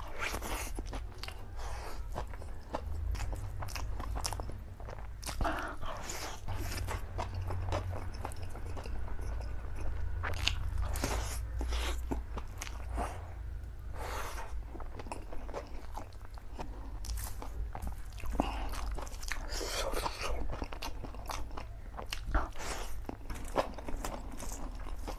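A person chewing and slurping mouthfuls of spicy black bean instant noodles eaten by hand, with wet smacking mouth noises at an irregular pace, over a steady low hum.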